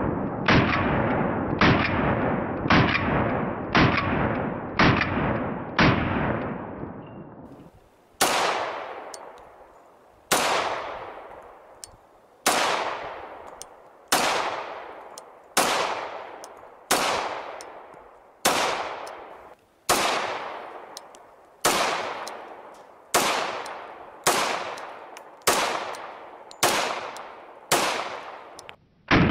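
An Argentine DGFM Sistema Colt Model 1927 1911 pistol firing .45 ACP single shots, each with a long echoing tail. It fires about one shot a second for the first seven seconds, then, after a short pause, a slower string of shots about every second and a half.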